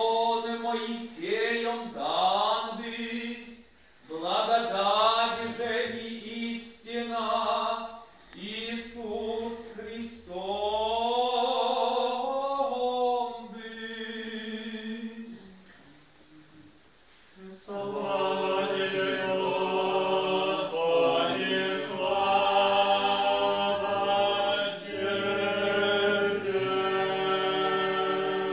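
Eastern-rite liturgical chant sung without instruments: a single voice chants short phrases and a longer held one, then after a short pause a choir takes up the chant in several voices.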